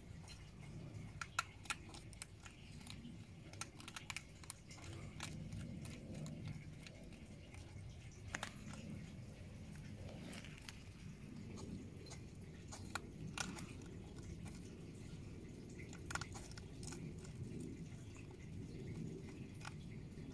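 Two hedgehogs eating from a small dish close to the microphone: soft crunching and smacking of chewing, with irregular small clicks, the sharpest about a second and a half in, over a soft low murmur.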